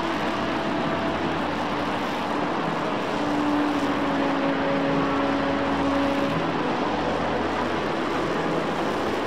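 RS-25 liquid-hydrogen/liquid-oxygen rocket engine firing on a test stand: a steady, even roar.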